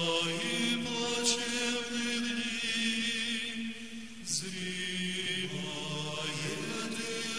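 Slow chanting by men's voices in long held notes that step to a new pitch every second or two, with sung words whose 's' sounds hiss briefly between them.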